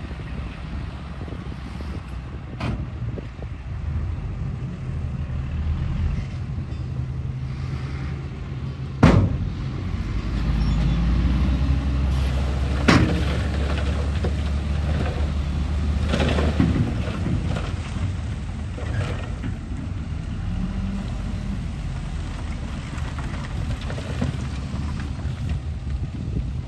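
A radio-controlled construction vehicle's small motors running with a steady hum that swells in the middle. Five sharp knocks fall through it, the loudest about nine seconds in.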